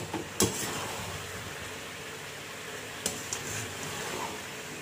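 Chicken and potato curry sizzling softly in a metal pot while it is stirred with a spatula, with a few light clinks of the spatula against the pot, about half a second in and around three seconds in.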